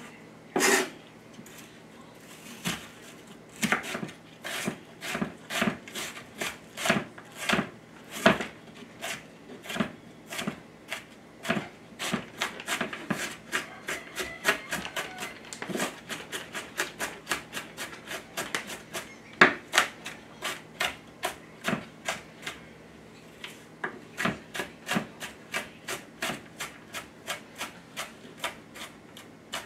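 Chef's knife dicing an onion on a bamboo cutting board: a steady run of knife strikes on the board, about two a second, quickening near the end, with some scraping of the blade.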